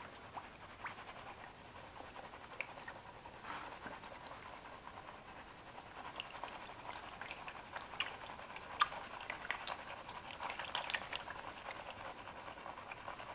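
Faint water sloshing and swirling in a plastic gold pan dipped in a tub of water, with small gritty scrapes and clicks from the concentrate sliding around the pan.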